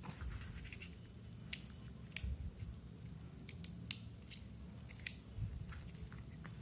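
Scattered small sharp clicks and taps with light handling rustle: a SIM card and the plastic shell of a JioFi M2 pocket router being handled, about a dozen irregular clicks.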